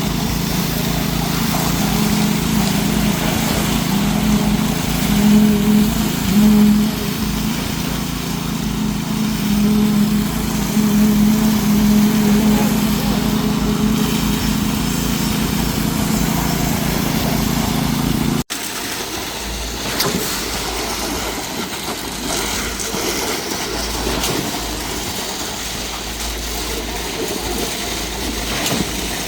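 Diesel engine of concrete construction machinery, most likely the concrete pump truck, running steadily with a low, even hum that swells a little now and then. About two-thirds of the way through it cuts off abruptly into a different, rushing noise with much less low hum.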